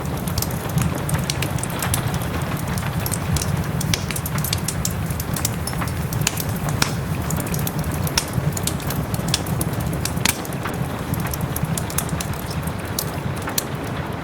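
Wood fire in a fireplace crackling with frequent sharp pops, over a steady bed of soft rain and a low rumble.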